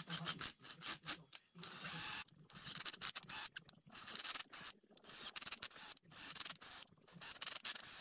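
Cordless drill driving an 8BA taper tap, cutting threads in metal bolt holes in short, irregular bursts of scraping.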